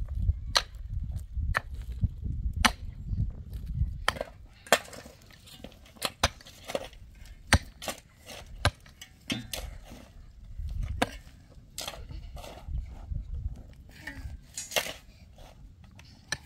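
A hand pick striking hard, stony soil again and again, a sharp blow about once or twice a second at an uneven pace, with loose dirt and stones breaking up.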